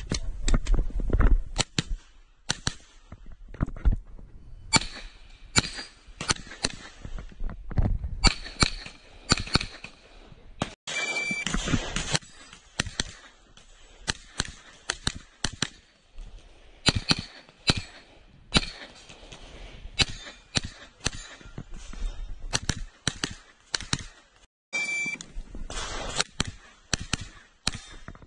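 Grand Power Stribog SR9A2 9mm pistol-caliber carbine firing close by, in quick strings of shots with short pauses between them.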